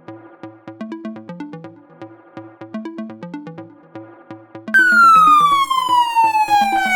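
Multi-tone electronic siren: a fast repeating pattern of short electronic notes, about four a second. About two-thirds of the way in, a loud wailing tone starts high and slides slowly down in pitch over the notes.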